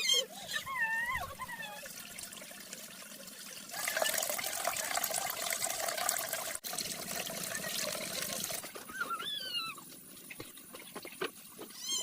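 Water trickling and splashing for several seconds in the middle, between short, high, wavering animal calls at the start and again near the end.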